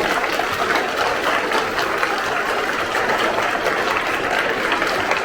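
Audience of students applauding, a steady dense clatter of many hands clapping.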